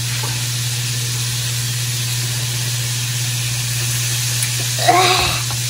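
A steady low hum under a constant hiss, with a short voiced 'mm' about five seconds in.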